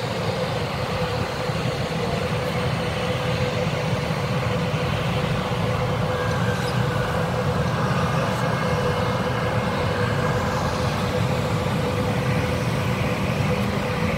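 Steady road noise of a car driving along, heard from inside the cabin: engine and tyres running at an even speed, with a constant drone-like tone throughout.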